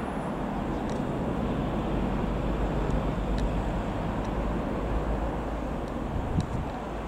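AgustaWestland (Leonardo) AW169 helicopter flying low overhead: a steady, deep rotor and engine rumble. It grows a little louder partway through and eases off near the end.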